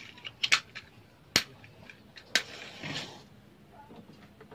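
Gas stove igniter clicking, about four sharp clicks over two and a half seconds, with a brief hiss after the last one as the burner is lit.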